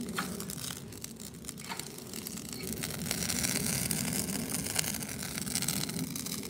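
Yard-waste and wood fire crackling with sharp snaps over a steady low rumble, the hiss growing louder about three seconds in.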